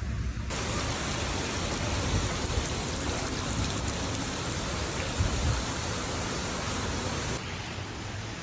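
Heavy rain pouring down, a dense steady hiss. It starts abruptly about half a second in and drops to a quieter hiss about a second before the end.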